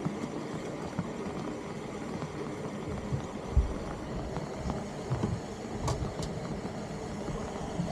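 Steady hiss of rain falling on a flooded street, with gusts of wind buffeting the microphone in low thumps a few times and two sharp ticks about six seconds in.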